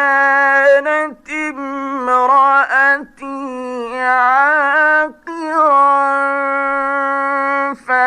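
A man reciting the Quran in the melodic mujawwad style: long, ornamented held notes that waver and glide in pitch, broken by short pauses for breath.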